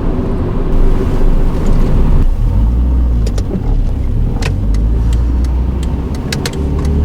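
Inside the cabin of a moving 1989 Honda Accord LXi coupe: its four-cylinder engine and road noise. About two seconds in the sound settles into a steady low drone, with a scatter of sharp clicks over it.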